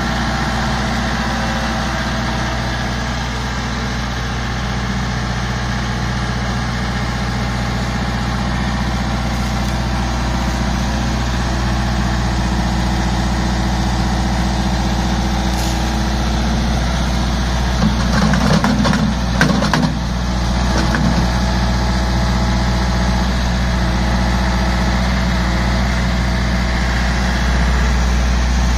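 Diesel engine of an RK compact tractor with a front loader running steadily. A brief rattling clatter comes a little past halfway.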